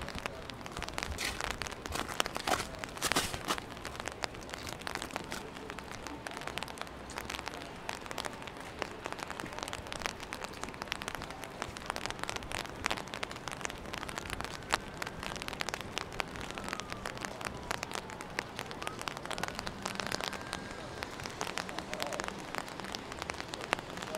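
Steady rain falling, a dense patter of many small drops hitting wet surfaces.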